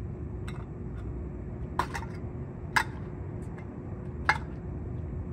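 Four short, sharp clicks and clinks, about a second apart, over a steady low rumble of city background.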